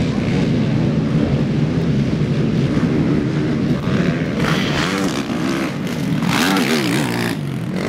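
Several racing quad bikes (ATVs) running hard, their engine revs rising and falling as they accelerate and back off.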